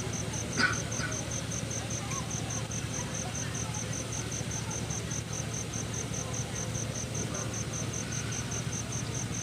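An insect chirping steadily at one high pitch, about four to five chirps a second, over a low background hum. There are two short sounds near the start.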